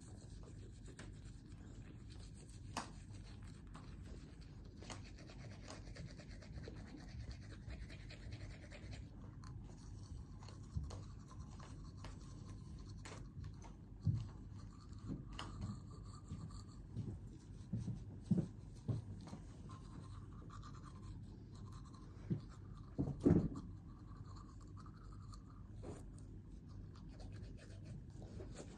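Faint scratchy scrubbing of a manual toothbrush on teeth, with a few short low thumps scattered through, the loudest a little before the end.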